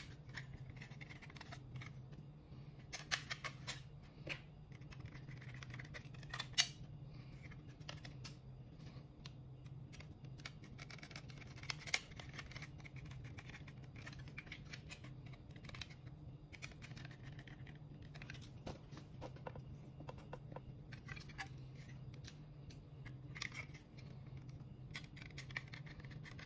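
Scattered small clicks and scrapes of a screwdriver and a metal laptop drive caddy being handled as the original hard drive is swapped for a 2.5-inch SSD, over a low steady hum.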